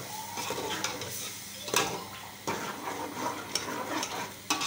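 Chicken sizzling in a pot as it is sautéed (bhuna) with freshly added ground tomato-garlic-ginger paste and dry spices, while a cooking utensil stirs and scrapes it. A few sharp knocks of the utensil against the pot, the loudest about two seconds in.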